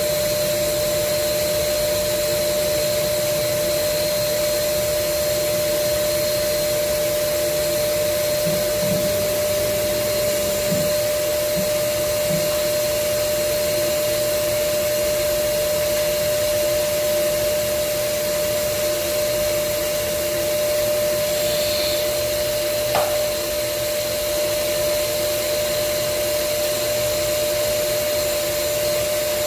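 Automatic CNC tool grinder (AE-30) running, its grinding spindle motor giving a steady hum with one constant mid-pitched tone and a hiss, during the sharpening of a 10.5 mm drill bit.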